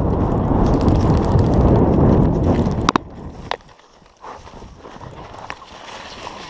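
Loud rumbling and rustling against the microphone for about three seconds, which stops abruptly with a sharp click, followed by a second sharp click half a second later.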